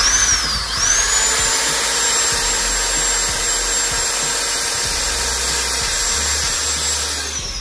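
Corded electric drill starting abruptly with a high motor whine that dips briefly in pitch and recovers, then runs steady while boring a hole through a red plastic piece. Near the end it winds down, the pitch falling away.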